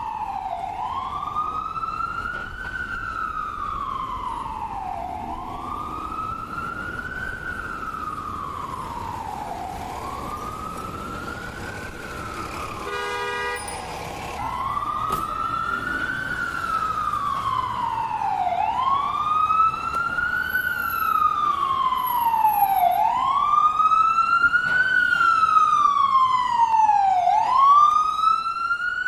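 Ambulance siren on a slow wail: each cycle sweeps quickly up and then glides slowly down, about every four and a half seconds, and the siren grows louder through the second half as it draws near. A short horn-like blast sounds about halfway through.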